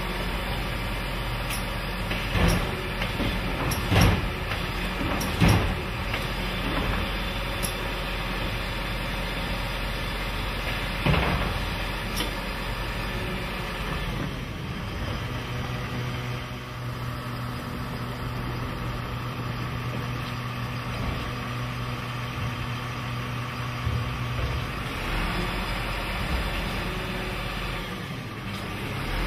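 Garbage truck with a Zoeller Medium XL body running, its engine rumbling steadily, with several sharp bangs in the first half. A steady low drone joins for about ten seconds in the middle.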